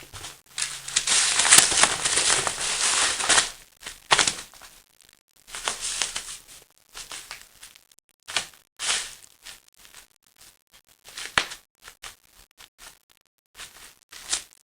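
Crinkling and crunching of bubble wrap and a paper napkin-bag lure as a cat chases and pounces on it. There is one long rustling stretch for about three seconds near the start, then short separate crinkles every second or two.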